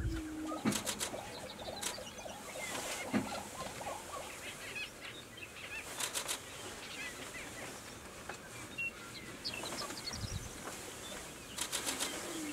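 Prairie chickens displaying on a lek: a busy chatter of short cackling calls, with a low hooting call at the start and again near the end. A few brief rapid bursts of clicks break in about a second in, halfway through and near the end.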